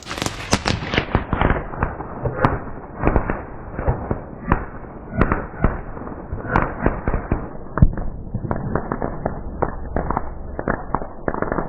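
Fireworks going off: a rapid, irregular string of pops and crackles with some louder bangs, the loudest about two-thirds of the way through.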